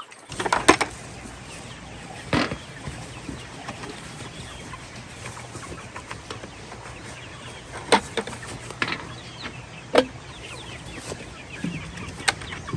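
Chickens clucking, with about six sharp knocks or clatters spread through it and a steady low hum underneath.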